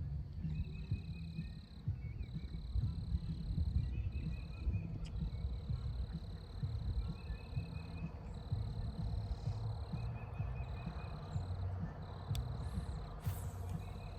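Insects trilling in a steady high-pitched chorus that breaks off briefly every few seconds, with a short chirping phrase repeating about every two to three seconds, over a loud low rumble of handling or wind noise on the microphone.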